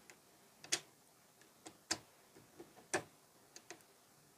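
About six short, sharp clicks and taps, unevenly spaced, as the screwdriver bits and the plastic storage case are handled.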